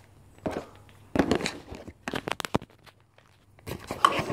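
Small plastic toy pieces and a paper wrapper being handled on a tabletop: a series of short clicks and crinkles, bunched about a second in, about two seconds in, and near the end.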